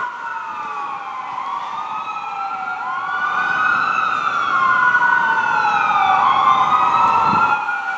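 Sirens of an approaching fire engine and ambulance wailing slowly up and down, two overlapping wails out of step with each other, growing louder.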